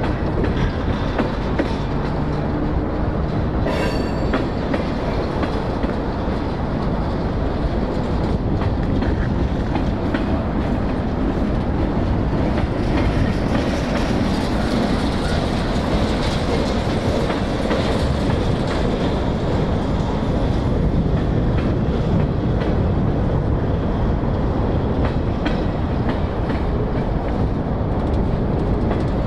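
Freight train rolling past at close range, a steady loud rumble of wheels and cars on the rails, with a brief high wheel squeal about four seconds in.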